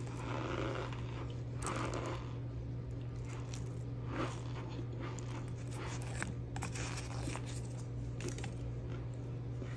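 Cornstarch powder sifting down onto a heap and crumbling, then scattered soft crunches and crackles as the powdery pile is disturbed, over a steady low hum.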